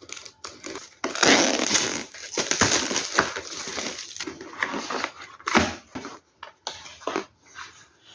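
A box of 8-inch floppy disks being handled and opened: a burst of crinkling and rustling of the packaging for about three seconds, then separate taps and clicks as the box and disks are handled.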